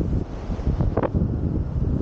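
Wind buffeting the microphone: a gusty low rumble, with a brief higher sound about a second in.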